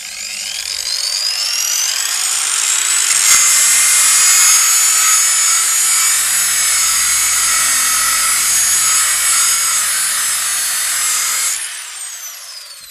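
Angle grinder with a cylindrical nylon abrasive brush spinning up with a rising whine, then scrubbing an old wooden board with a steady high whine and brushing hiss. It is switched off about eleven seconds in and the whine falls as it spins down.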